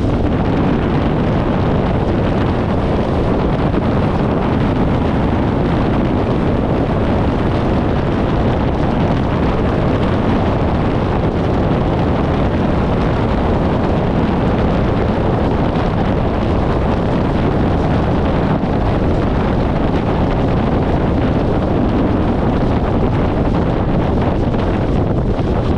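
Steady wind buffeting the microphone of a camera mounted outside a 1994 VW Gol driving on the highway, with the car's road and engine noise underneath.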